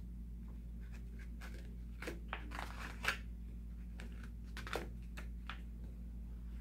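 Glossy paper pages of a picture book rustling and crackling softly as a hand turns them, in a few short scattered bursts.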